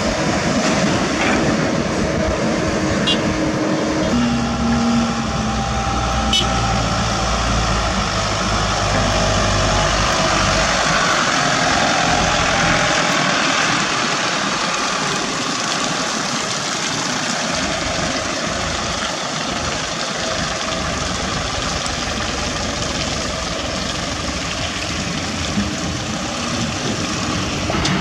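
Heavy diesel engines of a crawler excavator and dump trucks running. A deep low rumble with steady engine tones drops away about ten seconds in, leaving a lighter, even engine noise.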